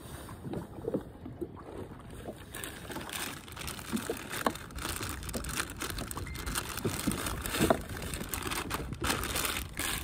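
Water lapping and splashing against a small boat's hull, with scattered small knocks, growing louder and hissier from about two and a half seconds in.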